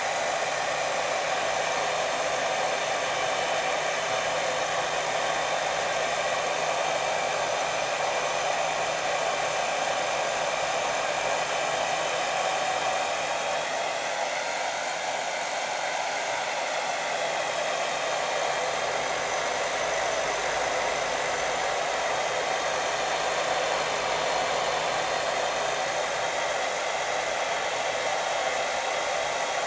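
Steady white noise for a baby's sleep: an even hiss that does not change or break.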